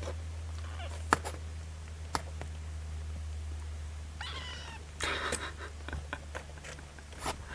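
Two-week-old kittens stirring in a cardboard box, one giving short, high, wavering mews about four and five seconds in. A few sharp clicks and a steady low hum run underneath.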